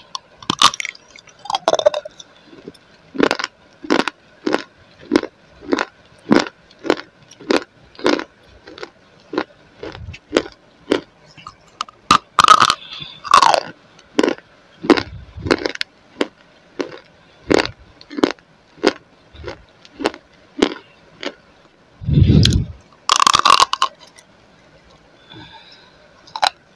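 Close-miked crunching of a clay roll being bitten and chewed: a few sharp snapping bites, and between them steady chewing at about one and a half crunches a second. A dull low thump comes about three-quarters of the way through.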